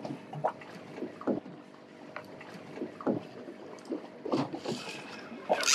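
Water lapping against the hull of a small drifting fiberglass boat, with irregular soft slaps and splashes.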